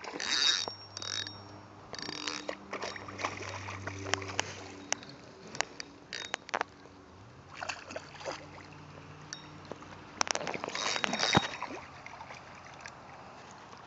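A hooked common carp splashing and thrashing at the surface of shallow creek water as it is played in, in bursts near the start and again near the end, with knocks and clicks from the handheld phone and tackle.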